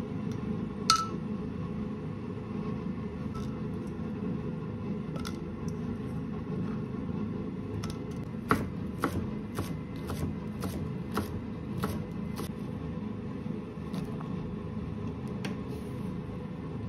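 A utensil taps once, ringing, on the rim of an enameled cast-iron pot about a second in. Later a run of light knocks, about two a second, as chunks of cut vegetables drop into the pot, over a steady low hum.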